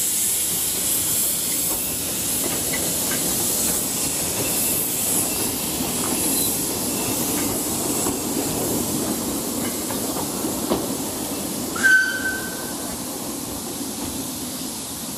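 Narrow-gauge steam locomotive 'Alan George' hissing steam as it pulls away, then its train of coaches rolling past with a steady rumble and light wheel clatter. A short, high squeal sounds about twelve seconds in.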